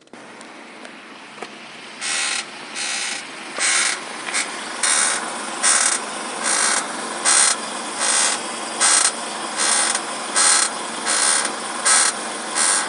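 Geely Atlas steering squeaking each time the steering wheel is turned, a bright squeak repeated about once every 0.8 s, some fourteen times, with no knocking. The squeak appeared after winter at about 9,000 km.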